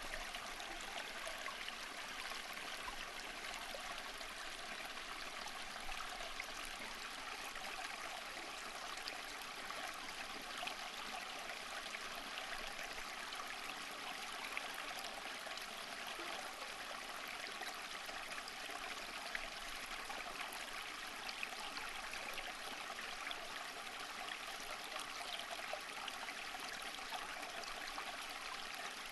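Running water flowing steadily: a continuous, even rush with small splashes flecked through it.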